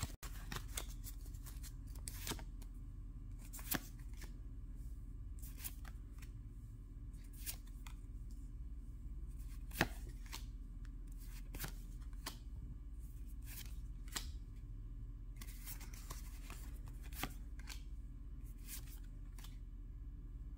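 Pokémon trading cards handled and flipped through one at a time, a short card flick or snap every second or two, over a faint steady low hum.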